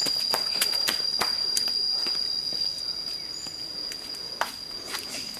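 Steady, high-pitched drone of forest insects, with irregular footsteps on a gravelly dirt track.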